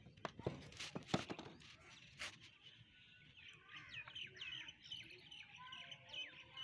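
A few sharp clicks and knocks in the first couple of seconds, then birds chirping outdoors: quick, repeated short chirps over the last three seconds.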